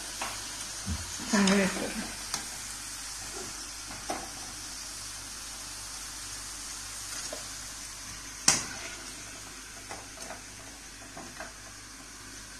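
Battered baby corn deep-frying in hot oil in a steel kadai, a steady sizzle as the pieces reach golden brown. A few light metal clinks from a steel slotted spoon, with one sharp clink about eight and a half seconds in.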